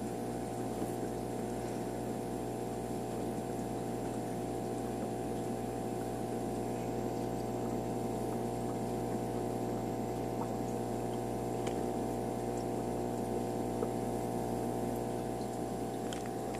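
Steady electric hum of an aquarium pump, with a few faint clicks.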